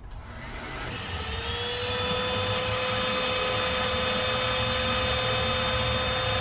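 Electric heat gun switched on, its fan motor spinning up over about two seconds to a steady whine with a rush of air. It is heating solder seal connectors to melt the solder and shrink the tubing over the wire joints.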